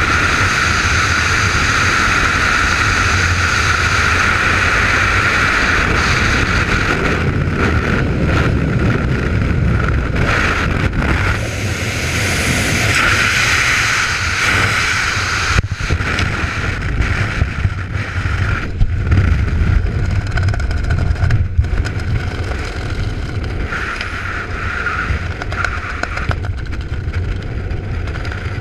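Wind rushing over a skydiver's helmet camera in freefall, a steady loud roar. Partway through it turns uneven and fluttering as the parachute opens and the jumper flies under canopy, with the wind noise rising and falling in gusts.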